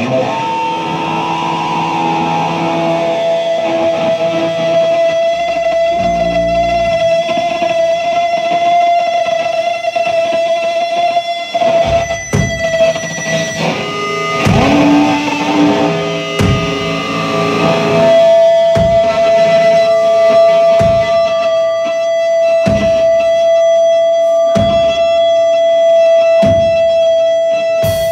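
Loud live punk band with distorted electric guitar, a steady held note of guitar feedback ringing over it, and bass notes. About twelve seconds in, heavy drum hits come in, roughly one every two seconds.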